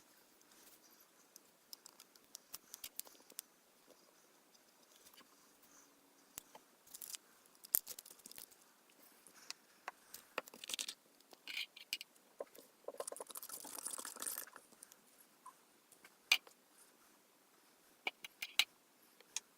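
Small handling noises at a hobby bench: scattered light clicks and taps of a plastic model kit and painting tools being handled, with a short scratchy rustle about thirteen seconds in.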